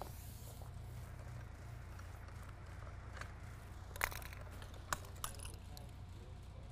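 Carpet being handled and shifted on a plywood board: faint rustling with a few short knocks about four and five seconds in, over a steady low hum.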